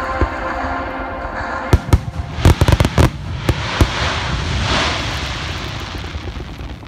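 Aerial fireworks shells bursting overhead: a quick cluster of sharp bangs from just under two seconds in, followed by a hissing rush that swells and then fades.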